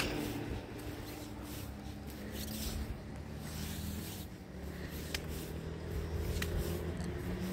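Low, steady hum of a motor vehicle's engine on the road, with two faint clicks near the end.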